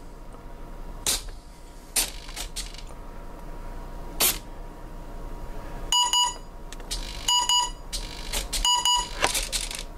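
Brushless motors beeping through their ESCs: three double beeps about a second and a half apart, starting about six seconds in. These are the throttle-range calibration beeps the ESCs sound with the throttle held at full on power-up. A few sharp clicks come first.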